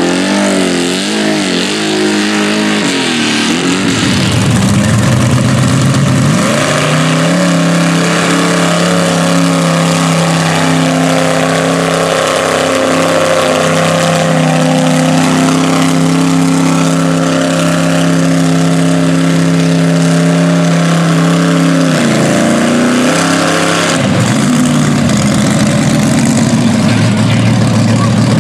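Lifted mud trucks on tractor tires running their engines at high revs through a mud pit. The revs waver up and down at first, then hold at a steady high pitch for a long stretch, dip briefly near the end and climb again.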